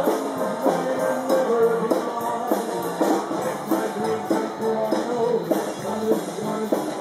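Dixieland jazz band playing, pitched horn and string lines over a steady drum beat.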